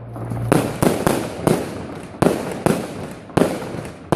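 Display fireworks bursting in quick succession: about eight sharp bangs, each trailing off in a fading rumble.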